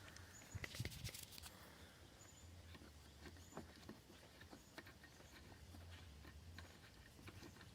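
Near silence with faint, scattered clicks and taps from hands and a screwdriver working at the fasteners of a car's interior door panel.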